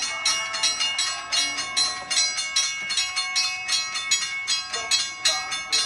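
Railroad crossing bell ringing in rapid, even strokes. It starts suddenly as the crossing is activated, with its warning lights flashing and gate arm lowering.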